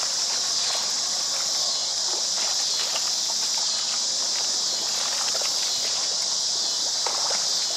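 Steady, high-pitched chorus of insects on a summer evening, with faint scattered clicks and rustles.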